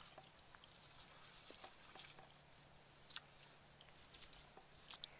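Bare feet stepping through shallow water and mud in wet grass, with a few soft, irregular splashes over a quiet background.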